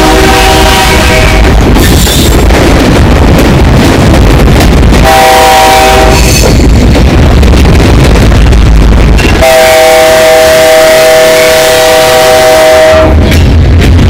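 Diesel freight locomotive's air horn sounding a chord of several notes three times: a blast ending about a second in, a short one about five seconds in, and a long one from about nine and a half to thirteen seconds. The rumble of the passing train runs between the blasts. Everything is boosted until it is heavily distorted.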